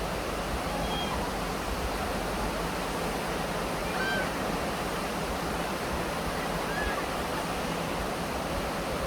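Mountain stream rushing steadily over rocks, with a few brief faint high notes about a second in, around four seconds in and near seven seconds.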